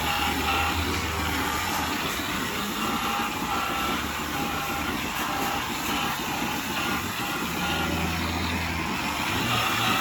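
A machine or engine running steadily, with a low hum that swells and fades several times.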